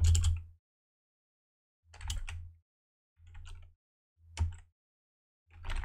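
A few scattered computer keyboard keystrokes with dead silence between them, a low hum coming up only with each keystroke.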